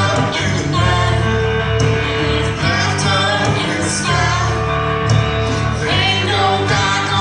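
Blues-rock band playing live, with a sung melody over bass and drums.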